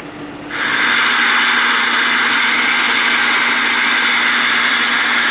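Loud receiver static hiss from a Galaxy DX 2517 CB radio's speaker. It comes on about half a second in and holds steady, the sound of the receiver with its squelch open. A faint low hum runs underneath.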